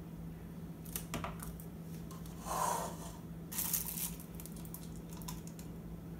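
Paper paint cups with wooden stir sticks being handled and one picked up off the counter: a few light clicks and knocks, a short scraping rustle and a brief crinkly rattle, over a steady low hum.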